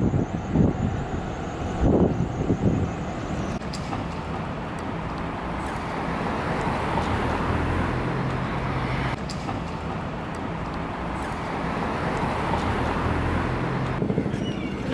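City traffic noise: a steady rush of passing vehicles with a low engine hum.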